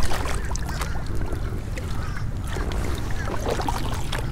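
Pedal-drive fishing kayak moving through weed-choked water: a steady low rumble with scattered small splashes and clicks along the hull.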